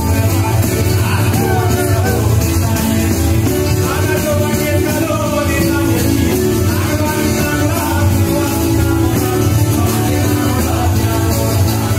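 Live acoustic band playing a southern Italian dialect folk song, with strummed acoustic guitar and a plucked string instrument, and a voice singing over it.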